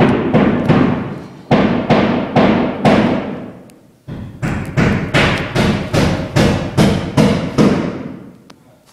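Repeated hammer blows on wood, a steady string of strikes about two or three a second, each ringing briefly. The blows pause for about half a second near four seconds in, then resume and stop near the end.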